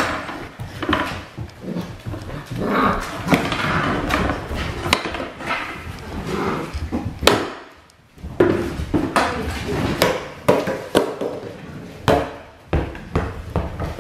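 Eight-week-old Belgian Malinois puppies playing rough together, with dog growls and yaps mixed among frequent sharp knocks and clatter of toys and paws on a wooden floor.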